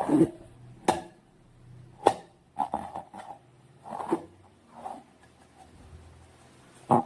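Slime being handled: irregular sticky squelches and clicks, a few sharp ones a second or two apart with softer squishes between.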